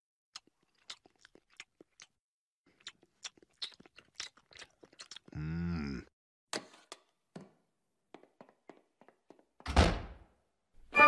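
Wet chewing and smacking of a dog eating chicken wings, in scattered small clicks, with a short low hum about halfway through. Near the end comes a single louder thud.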